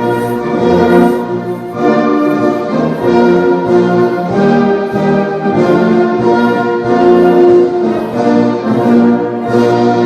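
Orchestral music led by brass, with horns playing sustained notes that change every half second or so.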